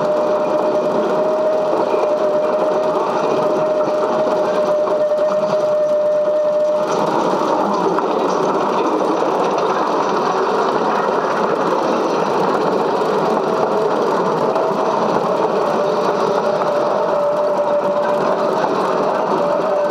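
Steady mechanical whir of a running cine film projector, with a constant thin whine that drops out about seven seconds in and comes back a few seconds later.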